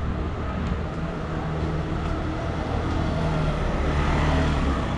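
A motor vehicle's engine running close by, growing louder about four seconds in and easing off near the end, as of a car passing in the street.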